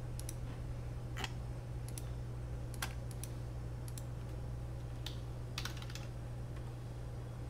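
Computer keyboard keystrokes typing a command: scattered single key clicks, then a quick run of several about two-thirds of the way in. A steady low hum lies underneath.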